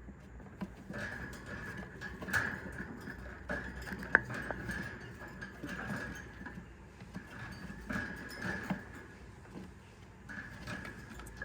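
Cockatiel chicks in the nest box giving a raspy, high begging call in stretches of a second or two, with scattered sharp clicks and knocks throughout.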